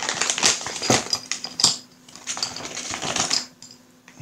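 Plastic bag crinkling and rustling as it is handled and opened, in two stretches of dense crackle with a short pause between, dying down about three and a half seconds in.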